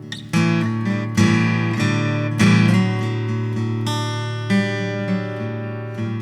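Acoustic guitar strumming chords in an instrumental passage of a song, with no singing. The chords are struck a few times and ring on between strokes.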